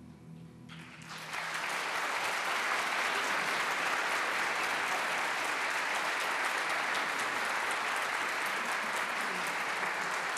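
Large concert audience applauding, the clapping swelling in about a second in over the last fading chord of an a cappella men's chorus, then holding steady.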